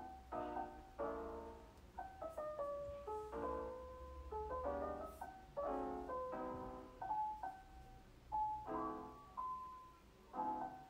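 Piano music: chords and single notes struck and left to fade, a new one about every second.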